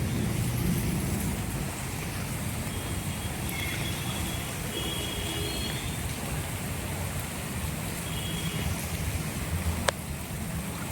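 Steady rushing noise of heavy rain and running water with a low rumble, a few faint short high chirps, and a sharp click near the end.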